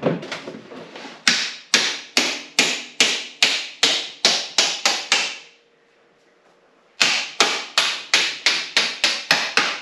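Hammer tapping a mounting bolt home while the engine is fitted back into a KTM 200 dirt bike frame: sharp ringing metal strikes at about two and a half a second, in two runs with a pause of about a second and a half in the middle.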